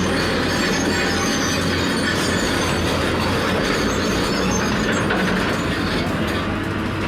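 Loud, steady mechanical noise of heavy vehicle machinery, a dense unbroken clatter with a low steady hum beneath it.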